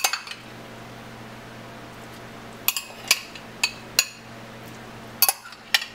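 Metal spoon clinking against a ceramic bowl while scooping pieces of raw rockfish fillet into a pot of soup: one sharp clink at the start, then a run of about six clinks over the second half, over a faint steady low hum.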